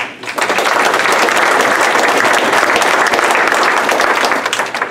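Audience applauding, many hands clapping. It starts about a third of a second in, holds steady and dies away near the end.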